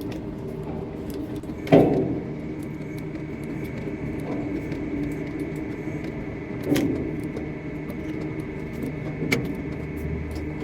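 Construction-site machinery running steadily with a low hum and a thin high whine. Sharp metallic clanks sound three times, the loudest about two seconds in.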